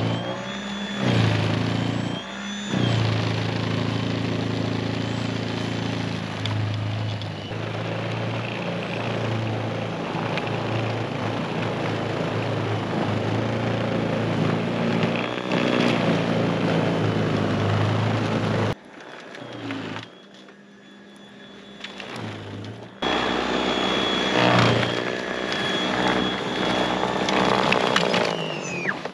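Greenworks 80V battery-powered snowblower running under load, its electric motor and auger giving a steady whine as it throws deep powder snow. The sound drops much quieter for about four seconds past the middle, then picks up again.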